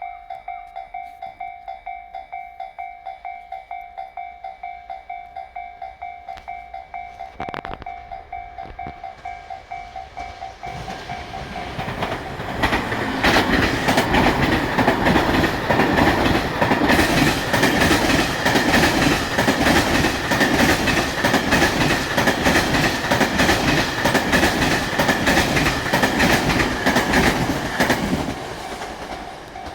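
A Japanese level-crossing bell rings at a steady beat of about two dings a second. Then, from about ten seconds in, a JR Freight M250 series Super Rail Cargo electric freight train passes at speed: a loud, rapid clatter of wheels over rail joints for some fifteen seconds. The clatter fades near the end and the crossing bell is heard again.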